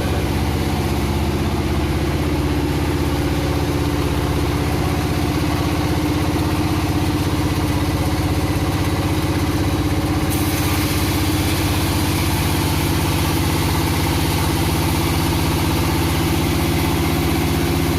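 Engine-driven wood-cutting saw running steadily at an even pitch; about ten seconds in, a higher hiss joins it.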